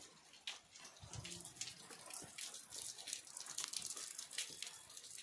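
Light drizzle: faint raindrops pattering and dripping in quick, irregular ticks over a soft hiss.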